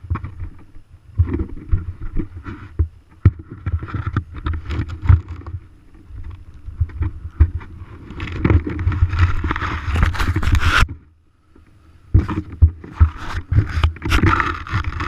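Dirt bike running while riding over rough, wet ground, with a jumble of low rumbling and knocks. It gets louder and hissier for a few seconds, then nearly cuts out for about a second around eleven seconds in before picking up again.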